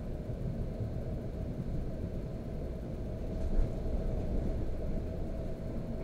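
Inside a Russian suburban electric train (elektrichka) running at speed: a steady low rumble of the car and its wheels on the rails, with a single sharp knock a little over halfway through.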